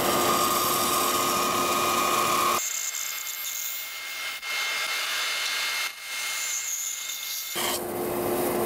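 JET band saw running, its blade cutting through a glued-up wood block fed against the fence. About two and a half seconds in the sound changes abruptly, the low hum dropping away to leave a thinner hiss, and the fuller sound comes back near the end.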